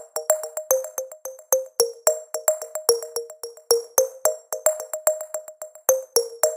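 Background music: a fast, even run of short, sharp pitched notes, several a second.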